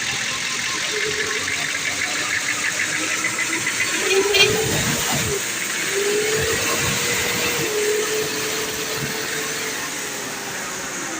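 Diesel engine of an old Ford with a hard-starting fault, running with a steady hiss. Its pitch rises slowly and sags away near the end.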